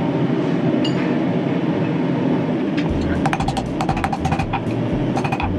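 Steady rushing of a running forge, then from about halfway in a quick series of ringing hammer blows on hot steel stock over an anvil, bending the latch.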